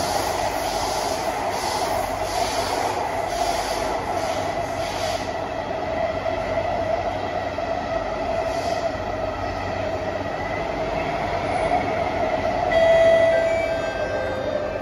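Cabin running noise of an SMRT Kawasaki–CSR Sifang C151B metro train, a steady rumble with a regular high pulse about twice a second over the first five seconds. Near the end the train brakes into the station with a brief loud squeal.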